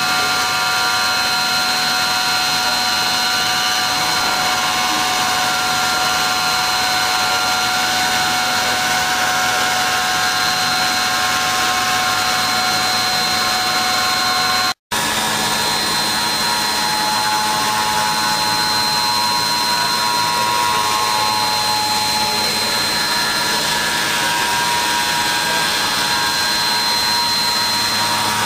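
5-axis CNC machine running a cut: a steady machining hiss with a high spindle whine made of several fixed tones. It drops out for an instant about halfway through, and the tones shift slightly after that.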